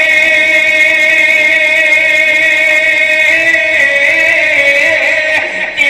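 A man singing naat, holding one long sung note through a microphone, the pitch wavering slightly; the note ends near the end.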